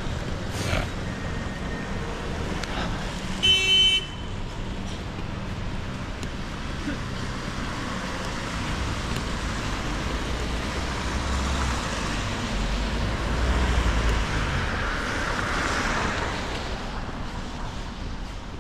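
Road traffic on a town street, with a short horn toot about three and a half seconds in. A vehicle passes close, its rumble swelling between about twelve and sixteen seconds in.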